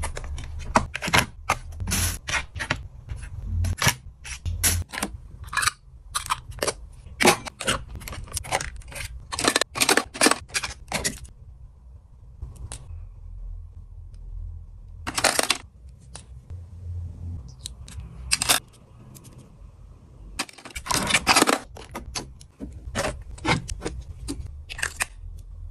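Makeup products and tools being picked up and set down on a vanity table: bursts of quick clicks, taps and clacks from the containers. The clicks come thickest in the first half, then a pause, then scattered groups.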